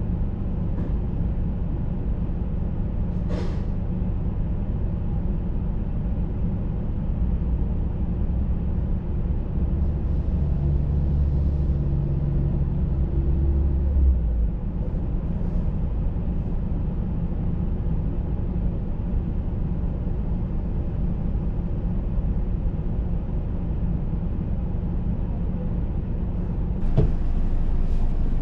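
Motor vehicle engine running steadily, with a louder, deeper stretch about ten to fourteen seconds in and a single sharp click a few seconds in.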